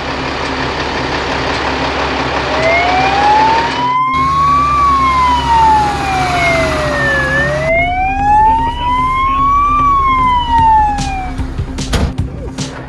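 Fire engine siren wailing, its pitch slowly rising and falling twice, over a steady engine rumble. A few sharp knocks come near the end.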